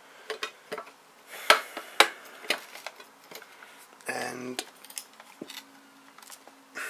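Irregular clicks and knocks of a small Slik tripod being turned and screwed into a mounting hole on the underside of a camera rig's metal base plate, with two louder clacks about one and a half and two seconds in.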